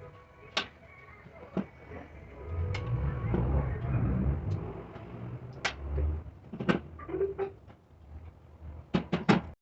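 Sharp knocks and clicks of tools and parts being handled during work on an air-brake air dryer, scattered singly and then in a quick cluster of four near the end, with a low rumbling noise in the middle.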